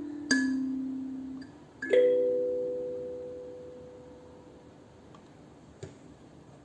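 Winly kalimba tines plucked: one low note, then about two seconds in two notes struck almost together, each ringing on and slowly fading. A small click near the end.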